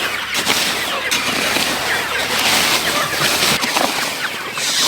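A flock of chickens clucking and chirping together, many short calls overlapping over a constant rushing noise.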